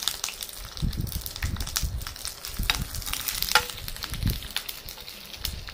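Crushed garlic, rampe and curry leaves sizzling and crackling in hot oil in a pan, stirred with a spoon, the garlic starting to turn golden. Irregular pops and crackles over a steady hiss.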